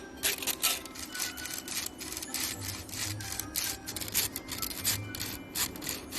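Repeated short scraping and rubbing strokes at an irregular pace, over a faint steady hum.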